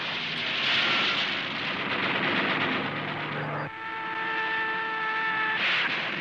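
Dubbed air-combat sound: aircraft engines with rapid machine-gun fire, then from about three and a half seconds in a steady high whine of a shot-down plane falling, cut off by an explosion and splash as it hits the sea.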